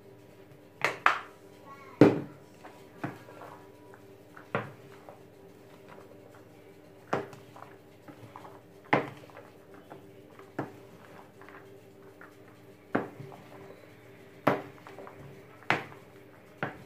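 Wooden spoon knocking and scraping against a large bowl as bulgur salad is stirred: about a dozen sharp, irregular knocks, the loudest about two seconds in, over a steady low hum.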